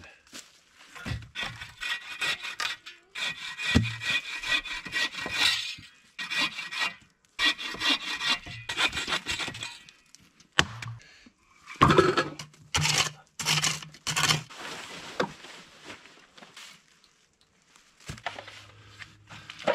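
Bow saw cutting through a log on a sawbuck: repeated back-and-forth rasping strokes in two runs, with a pause of about two seconds in between.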